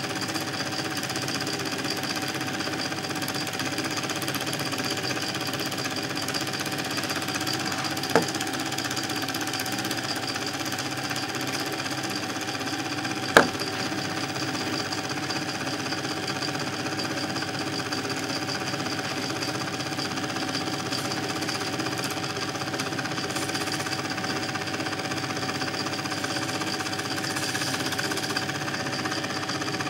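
Film projector running with a steady mechanical clatter, with two sharp clicks about eight and thirteen seconds in.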